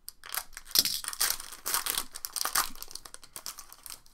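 Foil wrapper of a trading card pack being slit and pulled open by hand, giving a run of irregular crinkles and crackles.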